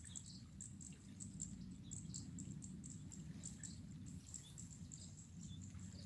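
Rural daytime ambience: high, thin insect-like chirps repeating irregularly a few times a second, with scattered short bird chirps over a low steady rumble.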